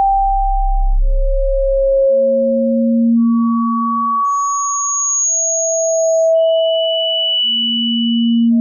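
Pure sine tones for tinnitus sound therapy, jumping between pitches from a deep hum to a high whistle. Each tone is held about two seconds and overlaps the next, so two tones sound at once.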